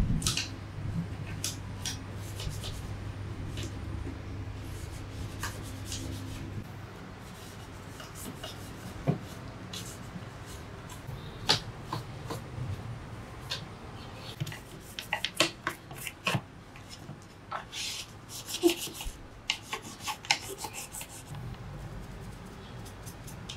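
Gloved hands working inside an opened mini inverter welding machine with a screwdriver: scattered small clicks, taps and rubbing of metal and plastic parts. A low hum runs for the first six or so seconds, then stops.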